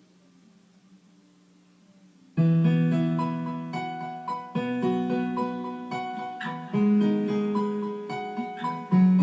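A faint low hum for about two seconds, then a piano comes in with sustained chords and a moving melody line, the introduction to the song.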